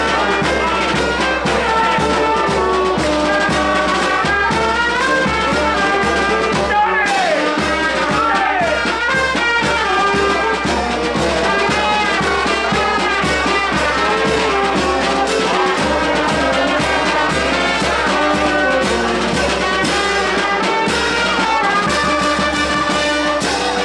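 Brass band of trumpets and trombones playing an Italian feast tune over a steady drum beat.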